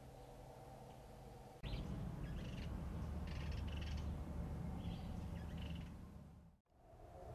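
Several short, chirpy bird calls over a low outdoor rumble; the background noise jumps louder about a second and a half in and briefly drops out near the end.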